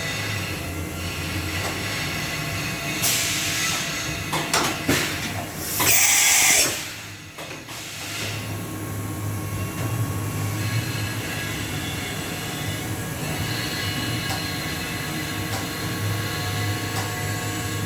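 CNC machining centre running with a steady hum. About three seconds in there is a burst of air hiss, then a few clicks and a louder hiss around six seconds in, as the tool changer brings the probe into the spindle.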